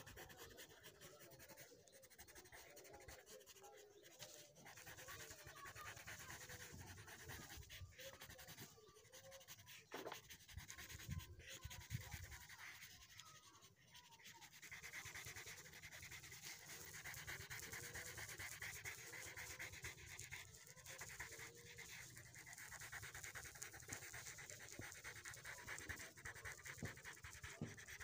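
Colored pencil shading on paper: faint, rapid back-and-forth scratching strokes as the leaves are filled in, a little stronger from about halfway through.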